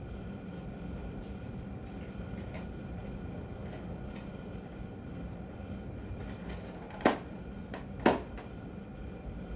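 Steady mechanical hum with light scattered ticks, broken by two sharp knocks about a second apart near the end.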